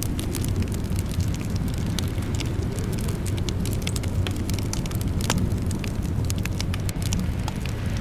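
Wood fire crackling in a fireplace: many sharp, irregular pops and snaps over a steady low rumble.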